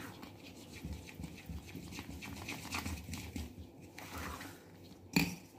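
Thick fermented idli batter being beaten with a metal spoon in an aluminium pot: a run of quick, rhythmic wet slaps and squelches as the salt, sugar and oil are mixed in and the batter is aerated. A sharp knock near the end.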